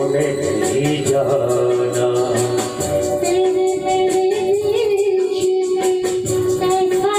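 Man singing a Hindi film-style song through a handheld microphone, over instrumental accompaniment with a long held note underneath.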